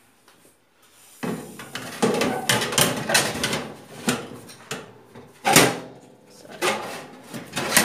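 Metal baking tray slid along the rack rails of a countertop OTG oven, scraping and clanking. The oven door is then swung shut, with the loudest clank a little past halfway.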